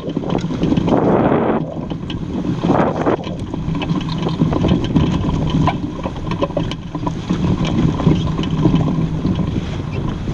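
Wind buffeting the microphone over water rushing along the hull of a Bauer 10 sailboat under sail, strongest in the first second and a half, with scattered small ticks and knocks.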